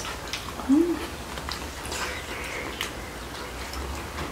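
A person eating gives a short closed-mouth "mm" that rises then falls in pitch a little under a second in, amid faint clicks of a spoon and chopsticks on dishes.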